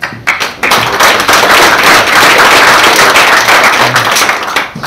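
Audience applauding: dense clapping that builds within the first second, holds, and dies away just before the end.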